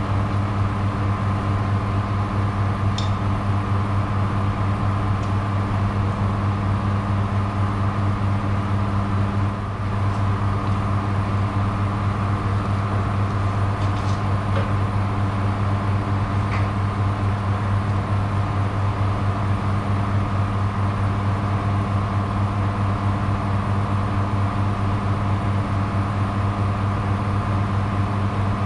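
Steady machine hum at a constant low pitch, unchanging throughout, with a brief dip about ten seconds in.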